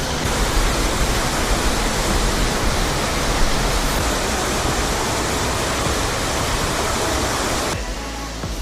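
Waterfall water rushing in a dense, steady noise that cuts off suddenly near the end, leaving quieter background music.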